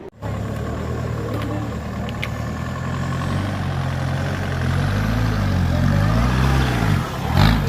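Off-road 4x4's engine running under load, its pitch rising and falling as the throttle is worked, with a short loud burst of noise near the end.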